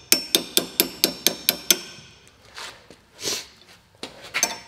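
A hammer rapidly tapping a steel punch set in an axe's eye, working the wedge loose. There are about eight ringing metal-on-metal strikes at roughly four a second, then a few softer knocks near the end.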